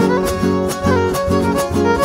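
Live huapango trio playing an instrumental passage: a violin carries the melody over steadily strummed guitars keeping the beat.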